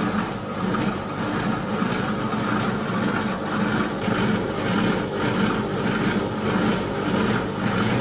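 Worn-out washing machine running, its motor humming steadily with a rhythmic churning pulse while water spills from its leaking tub.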